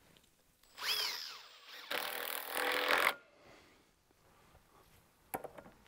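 Cordless drill driving screws into wood: a short burst about a second in with a whine that falls in pitch, then a steadier run of about a second.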